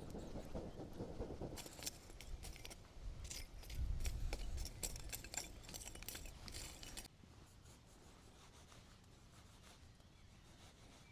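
A run of quick clicks and scrapes of small objects being handled, with a low bump about four seconds in. At about seven seconds it cuts off sharply to a faint, steady background.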